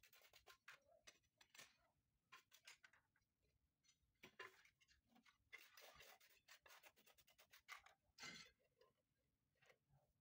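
Faint, irregular scraping, rubbing and clicking of hand tiling work on glass mosaic tile, with a sharper scrape about four and a half seconds in and another about eight seconds in.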